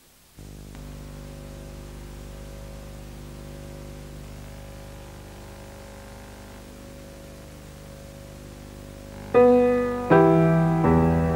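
Musical accompaniment to a silent film: a soft held chord, then about nine seconds in, loud piano chords struck one after another, each ringing out.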